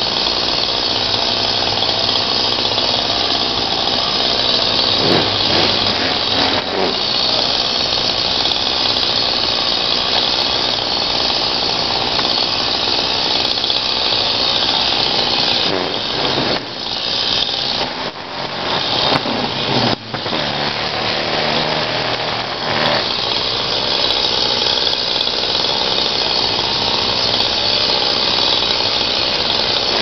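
Chainsaw running at high revs while cutting through tree wood, easing off the throttle a few times briefly around the middle before revving back up.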